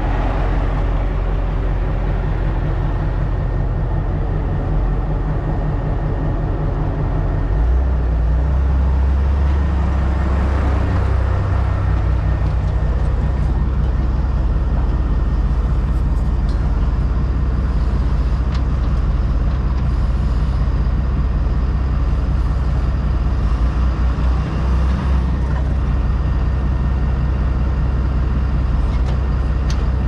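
Heavy diesel engine running steadily, its low note shifting about seven and a half seconds in.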